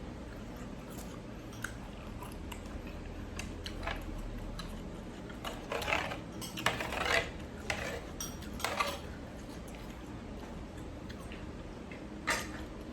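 Someone eating a bowl of noodle soup: utensils clinking against the bowl and chewing, over a low steady hum. A cluster of short, louder eating noises comes in the middle, and one more comes near the end.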